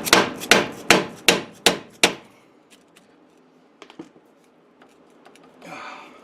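Dead-blow hammer striking the back of a stuck front wheel hub assembly to knock it loose from the steering knuckle: about six sharp blows in the first two seconds. Then a few light clicks and a short scrape near the end.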